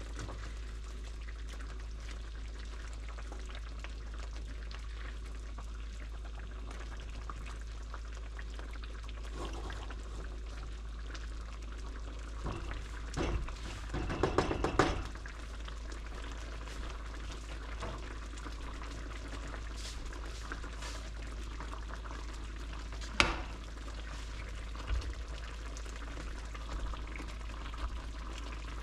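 Fish and bammy cooking on the stove: a steady sizzling hiss, with a louder spell of clattering about halfway and a single sharp knock a little later.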